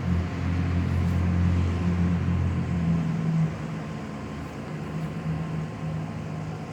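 A steady low mechanical hum, loud for about three and a half seconds and then dropping to a quieter, steady level.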